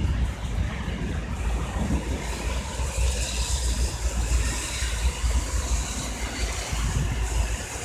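Rain falling, with a steady hiss that grows louder from about three seconds in, under the noise of traffic on a wet street and an uneven low rumble.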